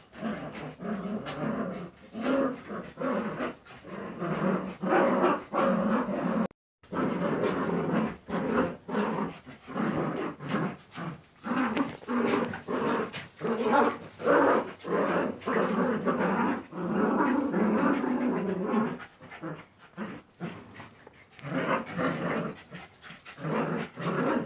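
Jagdterrier puppies growling as they tug and wrestle over a cloth, a dense run of short growls one after another with a few louder outbursts.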